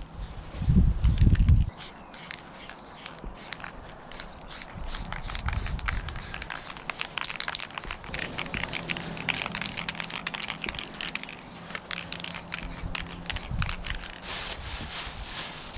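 Dense, quick crackling and scraping on the painting surface, many short scratches a second, as paint is worked in spray paint art. Low thumps sound in the first second and a half.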